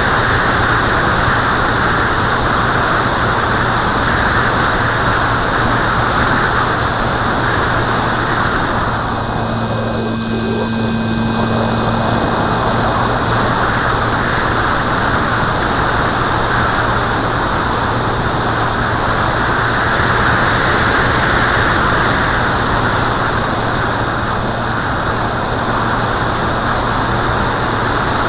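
Airflow rushing over a camera mounted on a small aircraft in flight, over a steady low drone from the aircraft's motor. About ten seconds in, the rush eases for a few seconds and a steadier hum comes through.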